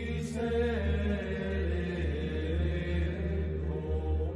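Gregorian-style chant: voices holding slow, sustained notes over a low, steady drone.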